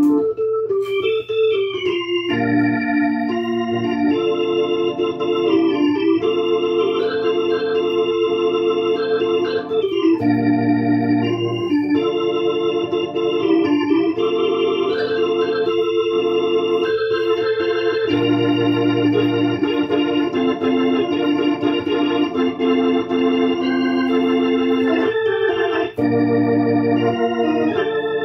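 Chopped Hammond M3 organ played through a Leslie speaker: held chords that change every few seconds, with a deeper bass note joining now and then.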